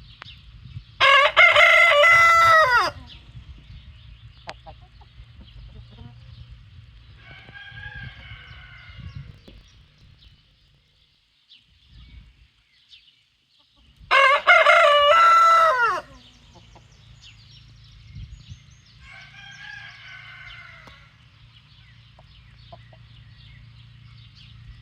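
Rooster crowing: two loud crows of about two seconds each, one about a second in and one about 14 s in. Each is followed some six seconds later by a fainter crow, over a low rumble of background noise.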